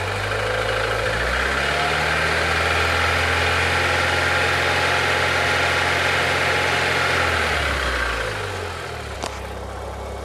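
Chevrolet four-cylinder MPFI engine revved up about a second in, held steady for several seconds, then eased back down to idle. It runs smoothly and evenly, with new spark plug wires curing the shaking and misfire caused by failing ignition wires.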